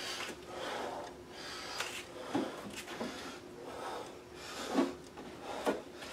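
Irregular soft knocks and rubbing as hands are set down on and lifted off a plastic aerobic step and a rubber floor mat during push-ups, with a few sharper thuds.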